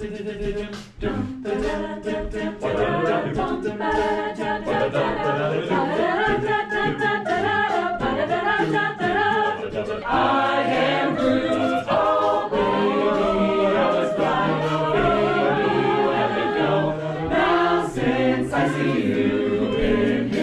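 An a cappella group singing a song in close harmony, several voices together with no instruments, with mouth-made percussion clicks at the start and again near the end.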